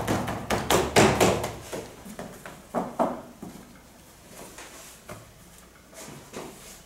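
Hands working dough on a floured stainless-steel worktable: a quick run of taps, slaps and scrapes over the first two seconds, then fewer, fainter knocks.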